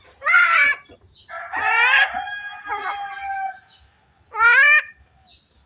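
Javan myna making speech-like calls in imitation of human talk: a short call, a long drawn-out one of about two seconds with held whistled tones, then another short call.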